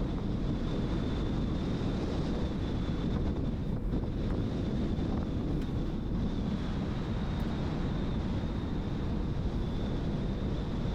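Car driving on a smooth road: steady low road and engine noise, with wind buffeting the microphone and a faint steady high whine.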